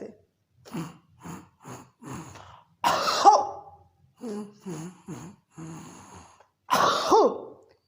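A person repeatedly snorting mucus back through the nose in short sniffs, then hawking it up with a loud cough, about three seconds in and again near the end. This cough comes from phlegm lodged in the back of the nose that is drawn down to the throat and expelled.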